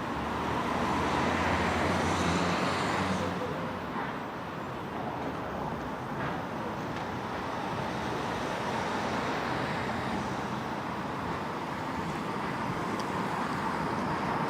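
City street traffic: a motor vehicle with a low engine hum passes close in the first few seconds, then steady traffic noise.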